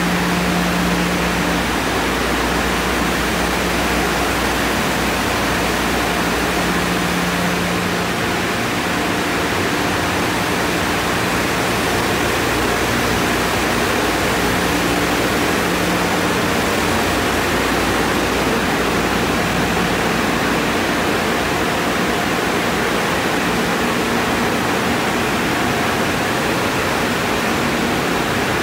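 Car wash tunnel dryer blowers running, a loud steady rushing of air with a faint motor hum that comes and goes.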